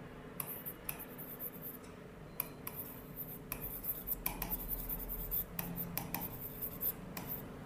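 Stylus writing on the glass face of an interactive touchscreen board: a faint string of irregular taps and short scratches as handwriting goes on.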